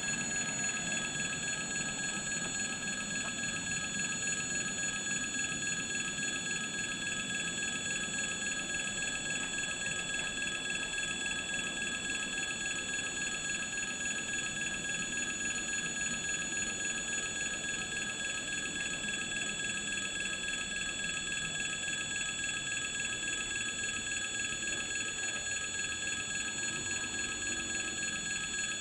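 Railway level-crossing warning bell ringing rapidly and steadily, the signal that the crossing is closed while its red lights flash.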